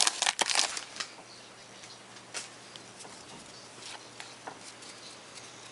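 Trading cards and pack wrapper being handled: a dense crinkling rustle in the first second, then a few faint, scattered light ticks and slides of cards.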